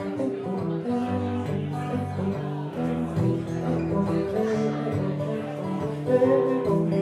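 Acoustic guitar played solo, chords ringing out one after another.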